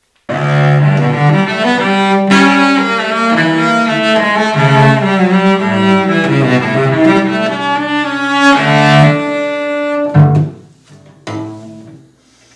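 Solo cello bowed, playing a melody of held notes. It starts abruptly and breaks off about ten seconds in, leaving only a few faint short sounds.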